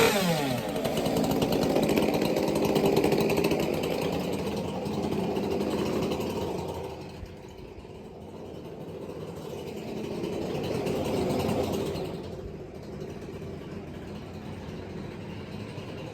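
Ported Stihl MS 462 two-stroke chainsaw dropping from full throttle to idle at the very start, then idling, its sound growing louder and quieter a couple of times.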